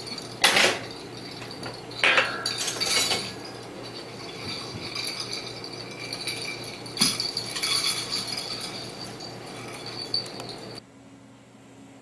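Dishes, glasses and cutlery clinking and knocking at a table, with a few sharp knocks spread through, over a steady faint high whine. The sound drops off abruptly near the end.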